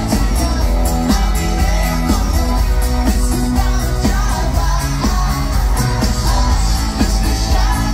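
Live pop-rock band playing a song with lead vocals, drums, guitars and bass, heard loud through the concert sound system from within the audience.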